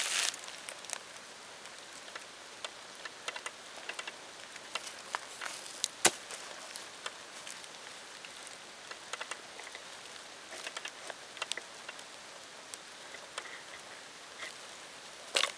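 Hands scraping through dry, gritty soil and gathering June beetles: scattered light clicks and ticks of beetle shells and grit, with a sharper click about six seconds in and brief rustling at the start and near the end.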